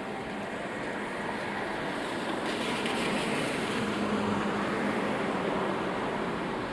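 Rain and city traffic on wet streets. A passing vehicle's tyre hiss swells from about two and a half seconds in, with a faint engine hum at its loudest, then eases off near the end.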